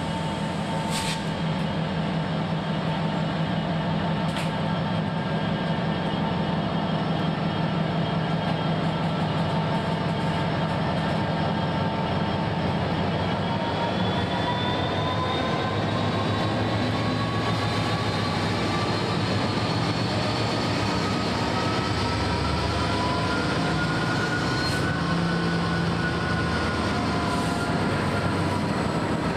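NSW 82 class diesel-electric locomotive 8253 running as it draws slowly past, hauling a failed BHP train. There is a steady engine drone, and a whine rises slowly through the second half. A few sharp clicks come about a second in, a few seconds later, and twice near the end.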